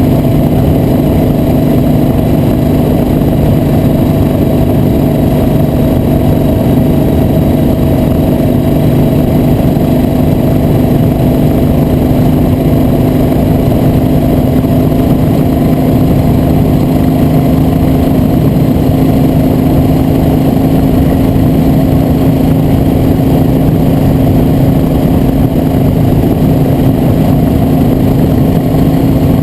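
Motor vehicle engine running steadily at a cruise, with constant road and wind noise; its note creeps slightly higher partway through.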